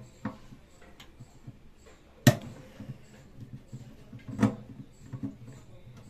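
Screwdriver knocking and clicking against a microwave oven's turntable synchronous motor and its sheet-metal back panel while the motor is being pried loose: two sharp loud knocks about two seconds apart, with faint taps between.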